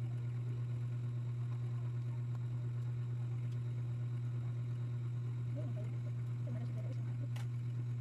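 A steady low hum, with a single sharp click near the end.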